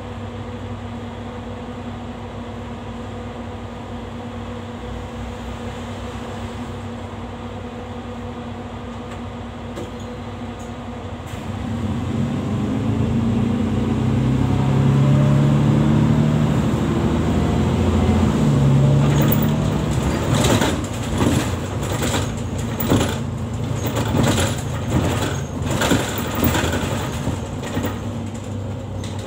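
City bus heard from inside the passenger cabin: the engine idles with a steady hum while stopped, then about twelve seconds in it pulls away under load, the engine note rising and getting louder as it accelerates. In the second half, irregular knocks and rattles come through over the running engine as the bus drives on.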